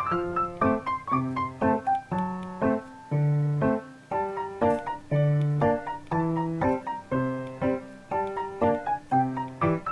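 Background piano music: a melody of short notes over chords, in a steady rhythm.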